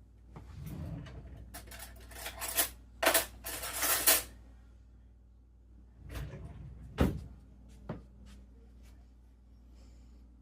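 Kitchen clatter as a spoon is fetched: clinking and rattling of cutlery for a few seconds, then a few sharp knocks about six to eight seconds in.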